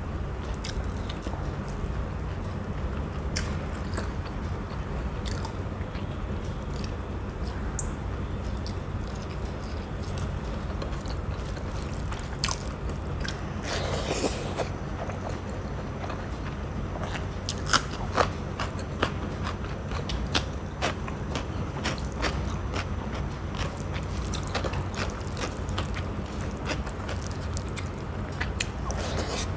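Close-miked chewing and biting of rice, curry and fried fish, with repeated crunches and wet mouth clicks and smacks, over a steady low hum.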